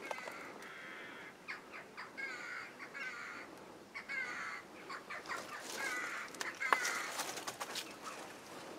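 Birds calling outdoors, a short wavering call repeated about half a dozen times, with a few sharp clicks in between.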